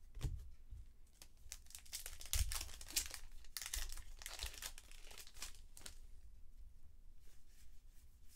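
Plastic wrapper of a baseball card pack being torn open and crinkled, a dense crackle loudest from about two to six seconds in, with softer rustling of cards being handled around it.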